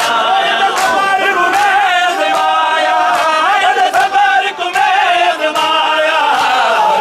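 A crowd of men chanting a noha together in unison, kept in time by rhythmic chest-beating (matam) slaps, about one beat every 0.8 seconds.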